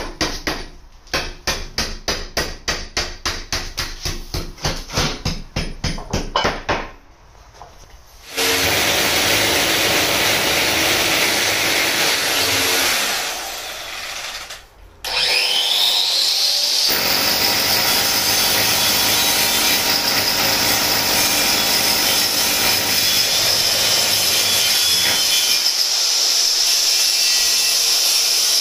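An angle grinder with a segmented diamond blade cutting into a brick wall, a steady dense grinding noise. Partway through it drops off and spins back up with a rising whine, then cuts steadily again. Before the grinding starts there are several seconds of fast, regular knocking, about four or five knocks a second.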